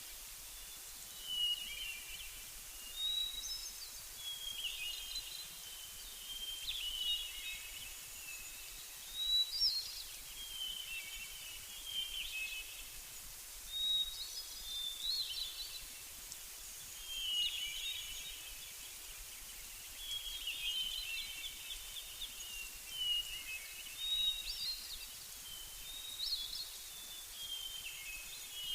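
Small songbirds chirping and singing in short, quick phrases, one every second or two, over a steady faint hiss.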